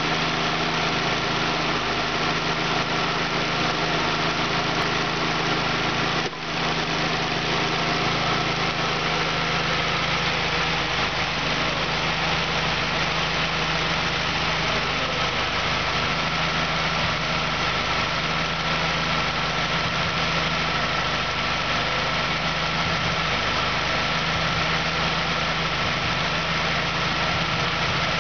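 2004 Nissan Sentra four-cylinder engine idling steadily under the hood, with a brief dip in level about six seconds in; the engine is rated as tested good.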